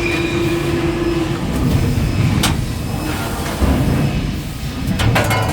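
Sheet-metal panel bender running through a bending cycle: a steady machine rumble with a hum that stops about a second and a half in, one sharp metallic knock in the middle, and a quick run of clacks near the end.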